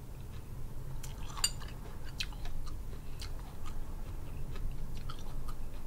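Close-up chewing and mouth sounds of someone eating, with scattered light clicks of a metal spoon against a glass bowl over a low steady hum.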